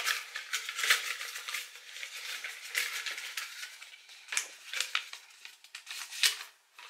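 Small folded paper slips crinkling and rustling in the hands as they are crumpled and unfolded: an irregular run of sharp paper crackles.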